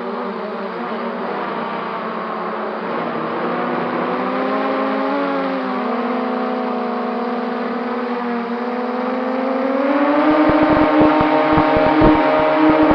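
MJX Bugs 3 quadcopter's brushless motors and propellers whining in flight, the pitch drifting up and down with throttle. About ten seconds in the pitch steps up and the sound grows louder, with rapid low buffeting thumps on the microphone.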